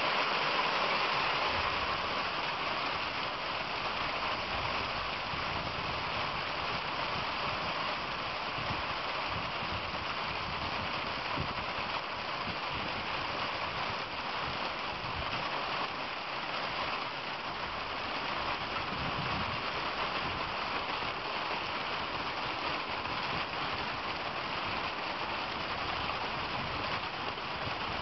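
Ice pellets (sleet) falling steadily onto a concrete walkway and driveway: a dense, even hiss of countless tiny impacts.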